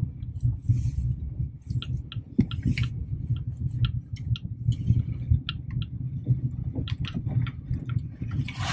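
Inside a small hatchback (Hyundai i10) on a rough gravel road: a steady low road and engine rumble, with many small knocks and rattles from the car's body and interior as it jolts over the bumps.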